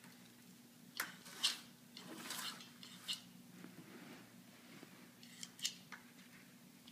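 A few faint, scattered clicks and rattles of plastic on the slot-car track, over a faint steady low hum.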